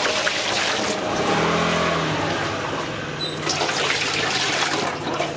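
Water pouring in a stream from a blue container into a metal basin, splashing steadily as the basin fills. A steady low hum joins in about a second in.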